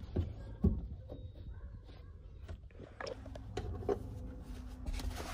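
Hands working around a car's fuel pump opening: light rustling and scattered clicks and knocks of a towel and ratchet being handled, with two dull thumps in the first second.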